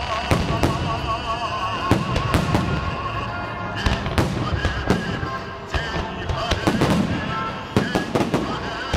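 Fireworks salute: an irregular run of sharp bangs from bursting shells, often several a second, with music playing underneath.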